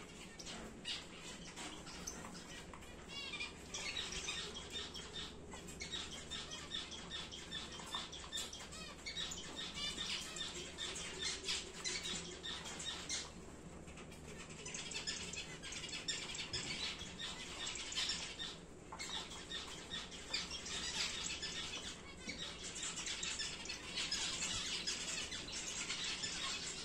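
Captive star finches calling in a busy stream of short, high chirps, with brief lulls twice, and some wing flutter as they move between perches.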